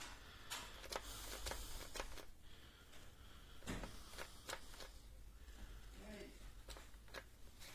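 Faint scattered clicks and light rustling of handling, with no saw motor running.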